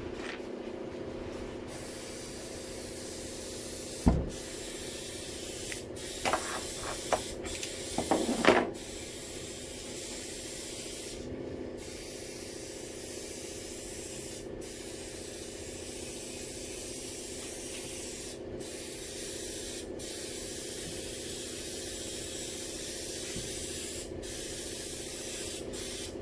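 Steady spray hiss over a machine hum, cut off briefly about ten times. A sharp knock comes about 4 seconds in, and a few clattering knocks follow between about 6 and 9 seconds in.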